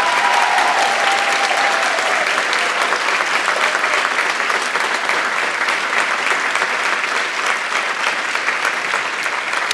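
Large audience applauding steadily in a theatre auditorium.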